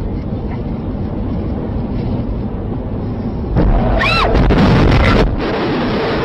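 Steady road and wind noise inside a moving car, then about three and a half seconds in a sudden, louder burst of crash noise with a brief squeal that rises and falls as another car strikes it on the highway.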